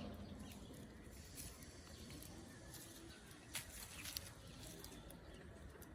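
Faint scattered ticks and rustling from a flock of local chickens moving and pecking about, with two sharper clicks about three and a half and four seconds in.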